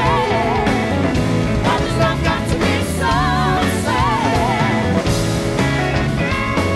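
Live rock band playing electric guitars, bass and drums. A lead line with wide vibrato wavers over it twice, and a held guitar note comes in near the end.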